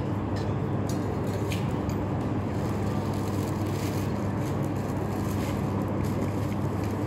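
Steady low mechanical hum made of several constant tones, unchanging in level, with a few faint clicks over it.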